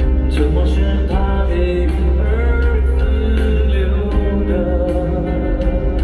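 Male singer singing a Mandarin pop song live with a band behind him. Under the vocal melody run a heavy, steady bass and a regular drum beat, as heard from the audience in a concert hall.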